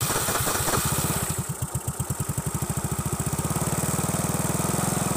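Yamaha Mio Sporty scooter's single-cylinder four-stroke engine idling through a kalkal pipe (the stock muffler with its insides gutted out), an even, rapid pulsing exhaust note. It is a little sharper and louder in the first second or so, then settles into a steady idle.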